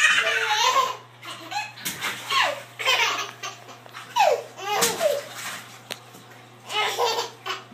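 Baby laughing in several short bursts of giggles and belly laughs, with brief pauses between.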